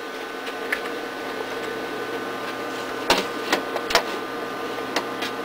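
A few keystrokes on a computer keyboard, typing the user name 'root' at a login prompt: one click early, then a quick run of three or four clicks a little past the middle and two more near the end. Under them runs the steady hum of the running computer, with a few faint steady tones.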